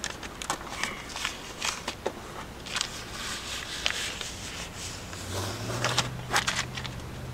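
Irregular crackles, rustles and light scrapes of vinyl decal material being handled and pressed onto a boat hull. A low steady hum comes in about five seconds in.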